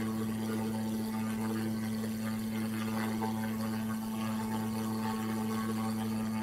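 Steady electrical hum: a low, unbroken buzz with a strong overtone an octave above, under a faint hiss, of the kind left on a faulty recording.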